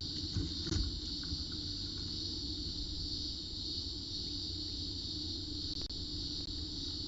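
Cicadas calling in a steady, unbroken high-pitched buzz, over a low hum.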